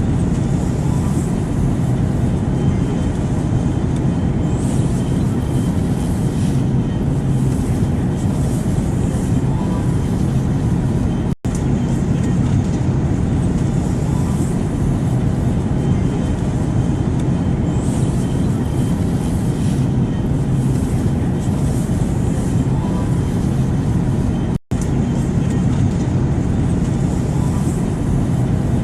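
Steady airplane noise: a continuous low drone with a fainter hiss above it. It cuts out twice for a split second, about 11 and 25 seconds in.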